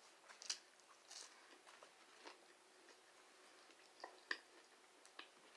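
Quiet chewing of chicken nuggets: scattered soft mouth clicks and smacks, with a louder smack about half a second in and another just past four seconds.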